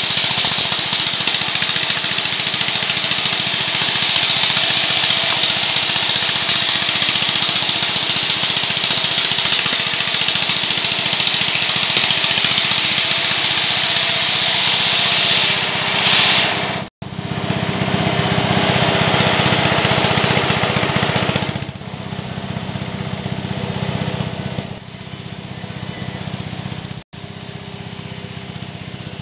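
Sawmill band saw running and sawing a log lengthwise into boards: a loud, steady hiss over the hum of its motor. The sound cuts off abruptly twice in the second half and is quieter and duller in the last several seconds.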